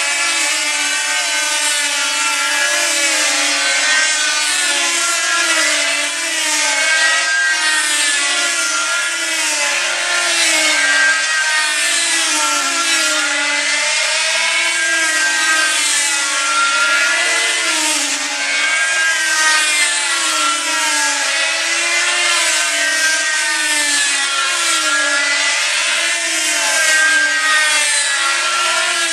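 Several control-line combat model aircraft with small diesel engines running together, their overlapping engine notes rising and falling in pitch over and over as the models circle the pilots.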